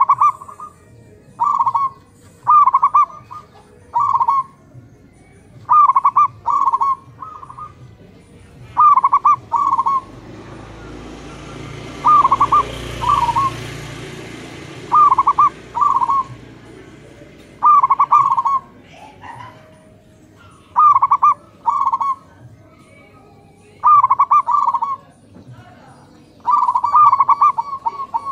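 Zebra doves (perkutut) cooing: short, rolling phrases of quick notes, each often followed by a shorter second note, repeated every two to three seconds. A low rushing noise swells and fades in the middle.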